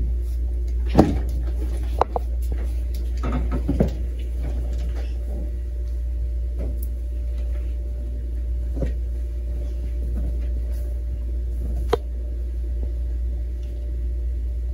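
A small old suitcase dragged out from under a bed and handled: a few knocks and clicks in the first four seconds and one sharp click near the end, with soft rustling of clothes in between, over a steady low hum.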